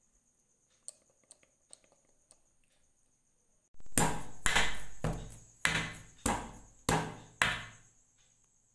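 A batter-filled round cake tin being tapped down hard on the counter, seven loud knocks about 0.6 s apart, each ringing briefly. It is the usual way to level the batter and knock out air bubbles before baking.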